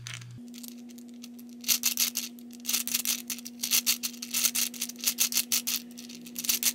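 Hungarian rings puzzle being turned by hand: its balls roll round the ring tracks in quick runs of small clicks, several a second, starting about two seconds in, over a steady low hum.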